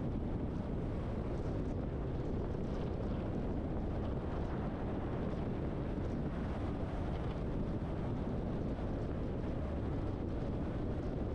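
Truck driving on the road: a steady, deep blend of engine, tyre and wind noise that stays even throughout.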